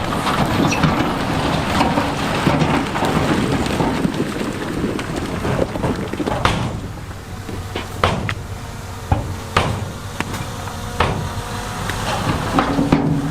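Heavy earthmoving machinery's diesel engine running under the crunch and clatter of big stones being moved. The first half is a dense rumbling clatter; after that come separate sharp knocks of rock striking rock or steel.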